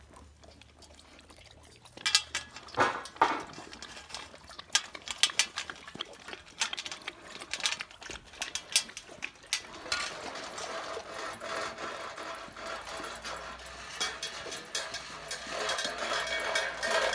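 Dog lapping bone broth and eating from a bowl: a quick, irregular run of wet clicks and licks, thicker and more continuous in the second half.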